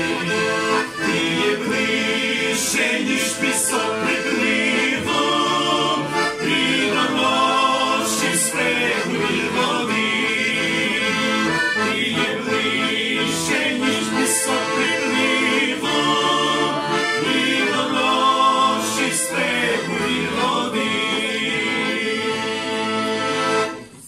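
A men's vocal group singing a hymn in harmony over instrumental accompaniment in long held chords. The music stops just before the end.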